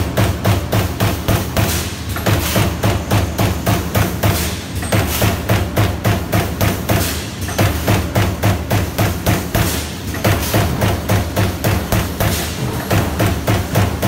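CNC turret punch press punching slots into sheet metal: a rapid run of sharp punch strikes at about five a second, broken by a few short pauses, over a steady low machine hum.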